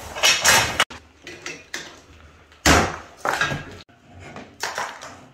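Steel frame parts of a metal box spring clattering as they are handled, in three short bursts; the first two cut off abruptly.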